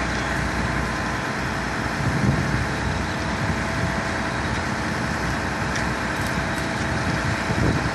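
Heavy diesel truck engines running steadily at a concrete pour: a truck-mounted concrete boom pump and the concrete mixer truck feeding it.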